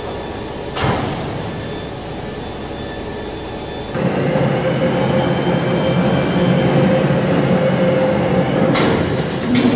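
Steady mechanical running noise of heavy factory machinery, with a hum and a faint high whine. It gets louder about four seconds in, and a few sharp clicks and knocks come through.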